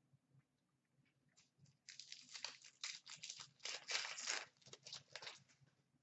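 Crinkling and rustling of a trading-card pack and its cards being handled: a dense run of scratchy crackles that starts about two seconds in and stops about three and a half seconds later.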